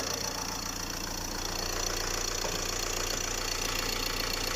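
Ford Transit 2.2 diesel engine idling steadily on its freshly rebuilt new block, free of the connecting-rod knock that broke the old one.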